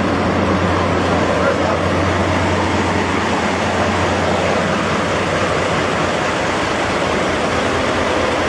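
DE10 diesel locomotive idling: a steady, loud engine noise with a low hum that fades about halfway through.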